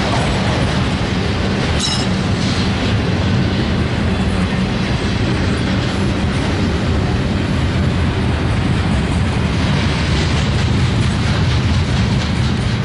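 A train passing close by: a loud, steady rumble of wheels running over the rails.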